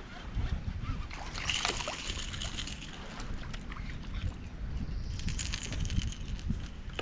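Water sloshing and splashing around a kayak, with a few light knocks.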